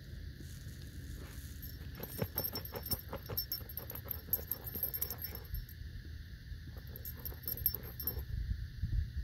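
Husky digging into gravelly desert soil with its front paws: quick scraping and rattling of grit and small stones in two spells, with a metal jingle from its harness.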